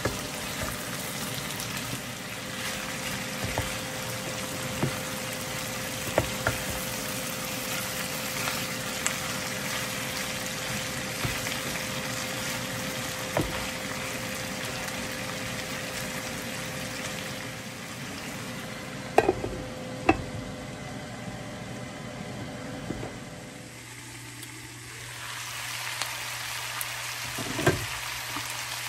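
Sitaw (long beans) and pork sizzling as they stir-fry in rendered pork fat, with a wooden spatula scraping and knocking against the pan now and then. Two louder knocks come about two-thirds of the way in and another near the end; the sizzle drops for a moment shortly after and then picks up again.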